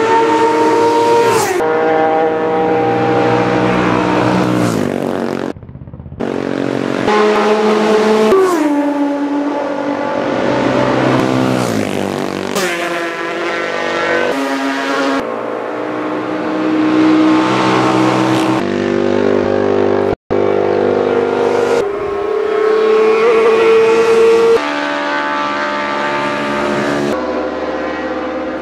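Classic racing motorcycles passing at high speed, one after another, each engine note falling in pitch as the bike goes by. The sound cuts off abruptly between some of the passes.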